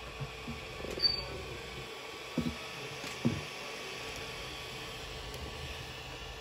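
Creality Ender 3 3D printer's fans running with a steady whir and faint hum, with three short soft knocks about one, two and a half and three and a quarter seconds in.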